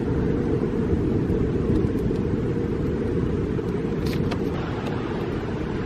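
Wind buffeting the microphone: a steady low rumble, with a few faint clicks about four seconds in.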